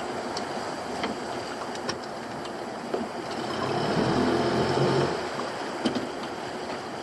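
A motor aboard a small fishing boat hums steadily under a wash of water and wind, swelling louder for about a second and a half near the middle before dropping back.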